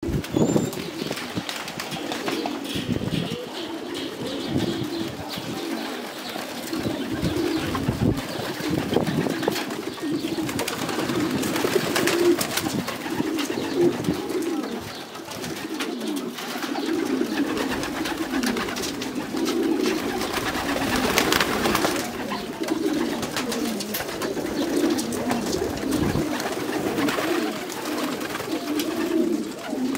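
A flock of domestic racing pigeons cooing continuously, many birds overlapping, with occasional short wing flaps.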